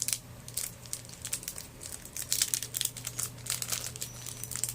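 Packaging crinkling and rustling in the hands as a small item from a mystery box is unwrapped, in quick irregular crackles that are loudest in the middle, over a faint steady hum.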